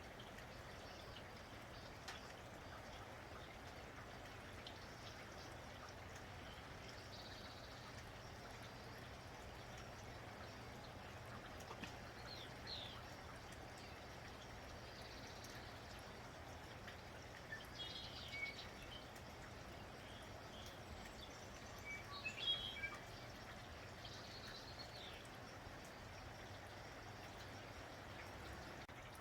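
Steady light rain, with birds chirping briefly a few times in the middle stretch.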